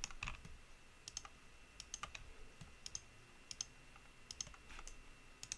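Faint, scattered clicks of a computer mouse and keyboard, about a dozen short ticks at irregular intervals.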